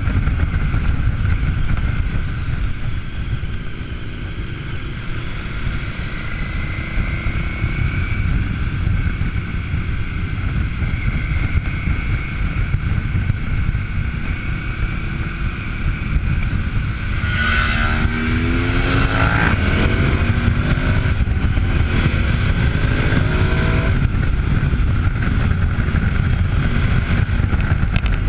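KTM adventure motorcycle's V-twin engine running under steady wind rumble on the bike-mounted camera's microphone while riding. From about two-thirds in, the engine revs rise and fall several times.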